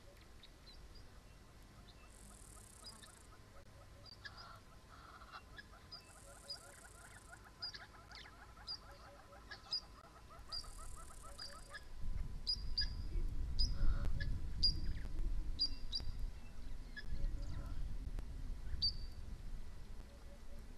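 Outdoor ambience of small birds chirping, with short high calls scattered throughout. A rapid, evenly pulsed trill runs through the first half, with three brief high hisses along the way. In the second half a louder low rumble comes in, typical of wind on the microphone.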